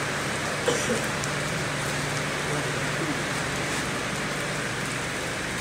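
Engine-driven grass chopper running steadily without feed: a steady hum from its small engine under a broad rushing hiss from the spinning cutter.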